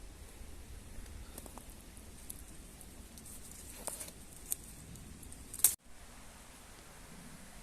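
Faint steady hiss with scattered small clicks and rustles of handling, and one sharper click a little before the sound cuts abruptly to a similar hiss.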